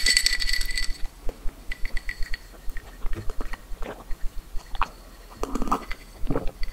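A drinking glass clinks and rings briefly at the start. Then come close-miked drinking sounds: small sips and mouth clicks, and gulps from the glass near the end.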